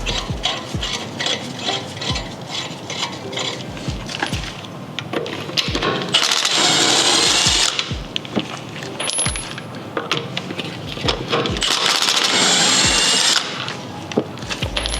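A power tool runs in two bursts of about a second and a half each, about six and twelve seconds in. Small metallic clinks and clicks of hand tools are heard between them.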